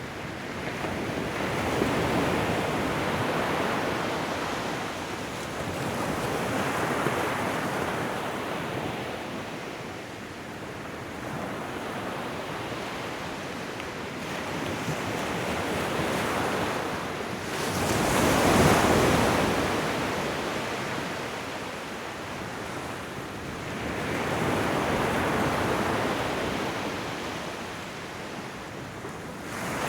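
Ocean waves breaking and washing up on a shore, swelling and fading every few seconds, the biggest wave a little past the middle.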